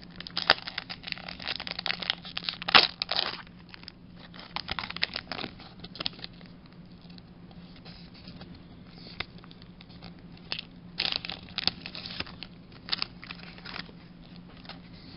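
Foil wrapper of a Pokémon card booster pack being torn open and crinkled in the hands, with irregular crackles that come thickest in the first few seconds and again past the middle. A faint steady low hum runs underneath.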